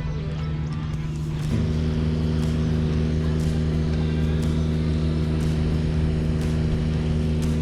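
An engine running steadily with a low, even drone that gets louder about one and a half seconds in.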